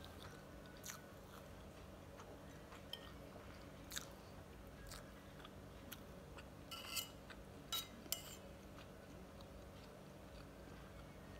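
Soft mouth chewing of fried ampog (corn-grit rice), with a few short clicks of a spoon on the plate, most of them about seven to eight seconds in.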